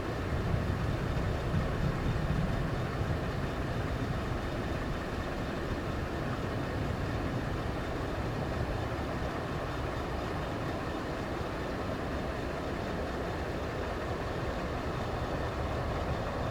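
Steady, distant rumble of a Boeing 737-800's CFM56 jet engines as the airliner comes in to land, a little stronger in the first few seconds.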